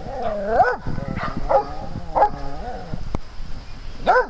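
Dogs barking and yelping while playing: a drawn-out first bark, three quick barks, then a pause and one more bark near the end.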